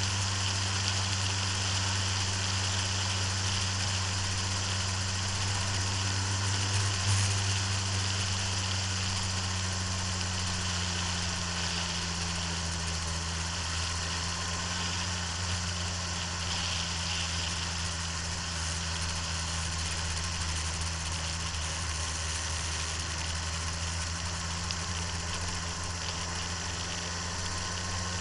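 Motorcycle engine running at a steady pitch while riding at speed on track, heard from an onboard camera with constant wind and road rush over the engine note.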